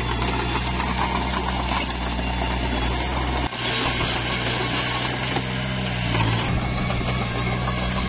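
Komatsu D21P bulldozer working: its diesel engine running steadily under a rattling clatter of the steel tracks and machinery, with an abrupt change in the engine's low tone about halfway through.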